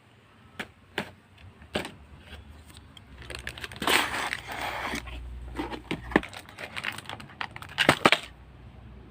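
Hands unboxing a Beyblade toy: a few separate sharp clicks, then a couple of seconds of rustling packaging from about three seconds in, and a quick run of loud clicks near the end.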